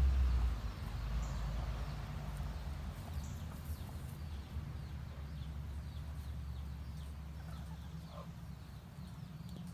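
Quiet backyard ambience with faint, soft clucks and small high chirps from chickens resting in the sun, over a steady low hum. A low vehicle-like rumble dies away in the first half second.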